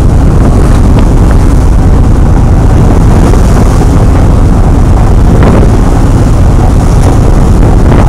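Wind buffeting the microphone over the steady running of a motorboat's engine and the rush of its wake at speed.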